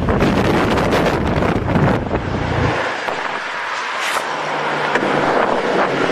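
Wind buffeting the microphone of a camera on a moving motorbike, mixed with engine and road-traffic noise. About three seconds in the heavy low rumble drops away, leaving lighter rushing noise and a steady low hum.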